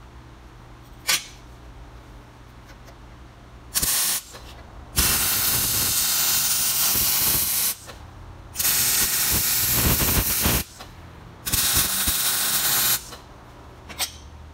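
Arc welder welding a half-inch steel bolt onto a quarter-inch steel plate, with a steady frying hiss in four bursts: a short one about four seconds in, then three longer runs of about two to three seconds each. A single sharp click comes about a second in.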